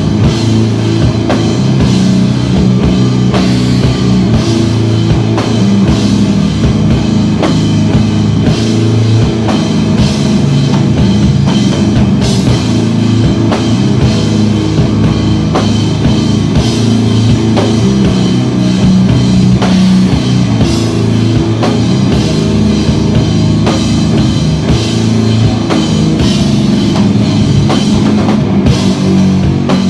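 Rock band playing live and loud: a drum kit keeping a busy beat under electric guitars, with a heavy low end.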